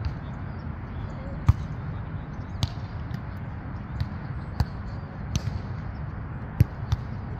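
A volleyball being struck during a rally: about seven sharp slaps of hands and forearms on the ball, irregularly spaced, over a steady low rumble.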